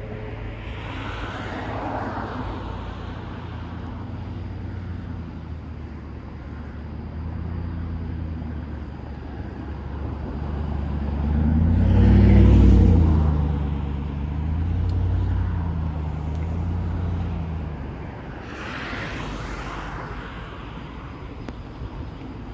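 Engine rumble of a road vehicle passing by, swelling to its loudest about halfway through and then fading, over steady traffic noise.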